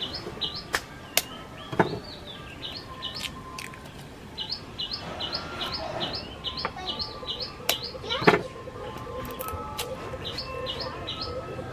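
A bird singing a short chirped phrase over and over, in several runs, with a few sharp taps from the cooking. The loudest tap, about eight seconds in, comes as an egg is cracked open over the pot.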